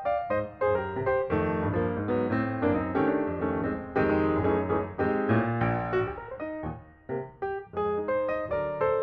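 Background piano music, chords and a melody played at a steady pace.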